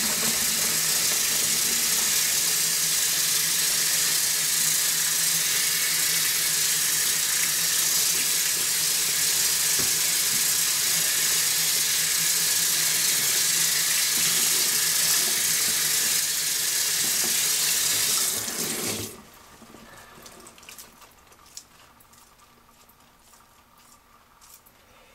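Bathroom sink faucet running steadily, water splashing over a cuckoo clock movement being rinsed under it, then shut off suddenly about three quarters of the way through.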